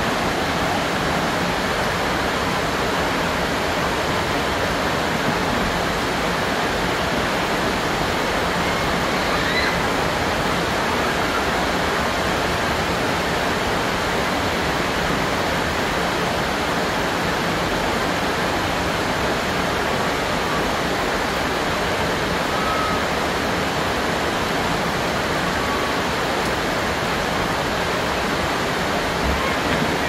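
Steady rain falling, a dense, even hiss that does not let up.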